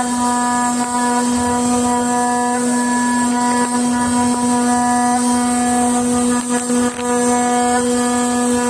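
Ultrasonic machining machine running with a loud, steady electrical hum on one low pitch, with a faint high hiss over it.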